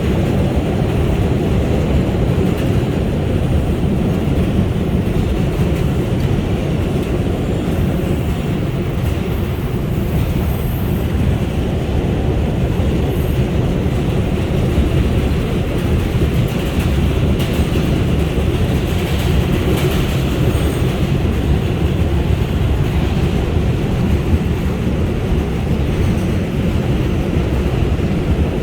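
An R142 subway car running steadily along the express track, heard from inside the car: a continuous, even noise of wheels on rail with no stops or changes.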